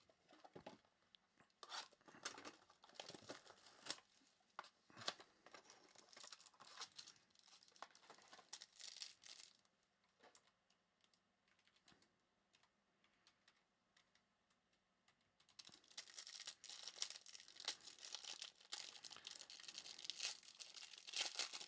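Trading-card pack wrappers being torn open and crinkled, in scattered bursts for the first ten seconds or so, then a quiet spell of a few seconds, then steady crinkling and tearing through the last third.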